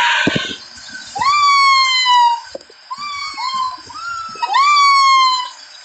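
A pet animal's drawn-out calls, four in a row, each rising quickly and then sliding slowly down in pitch; the third is shorter.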